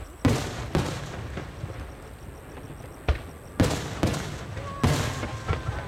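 Aerial firework shells bursting overhead: about six sharp bangs with echoing tails, two close together early on and a quicker run of four from about three seconds in.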